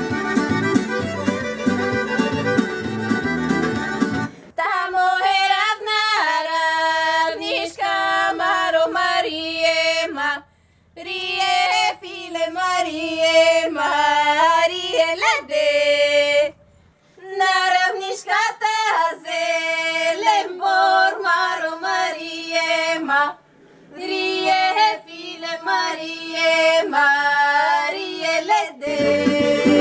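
Bulgarian folk song: an instrumental passage, then about four seconds in the instruments drop out and women's voices sing unaccompanied in long phrases with short breath pauses between them. The instruments come back in near the end.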